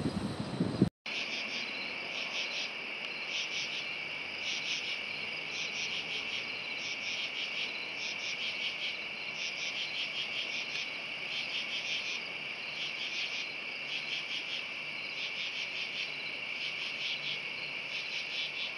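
A chorus of crickets at night: a steady high trill with a fast pulsing chirring above it, even throughout. It follows about a second of low rumbling wind-like noise that cuts off abruptly.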